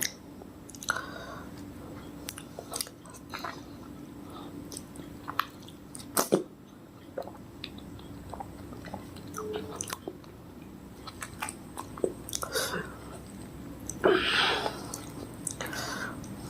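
Close-miked chewing of soft, juicy fruit: irregular wet mouth clicks and smacks, with a louder noisy burst of chewing about fourteen seconds in.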